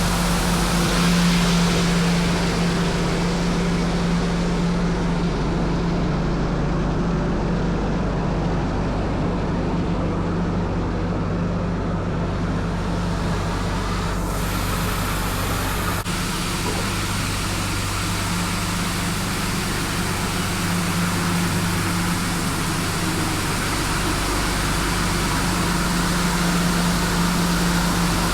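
Tymco 435 regenerative-air street sweeper running while sweeping: a steady engine and blower hum with an even hiss over it.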